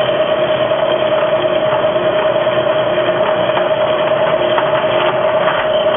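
Slitting saw on a Bridgeport milling machine's arbor cutting a slot in a metal part, fed by hand with spray lubricant: a loud, steady whine of the spinning saw and cut.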